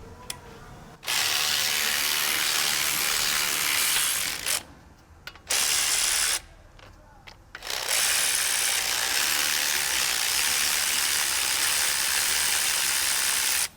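Power ratchet running in three bursts: a long one, a short one, then a long one.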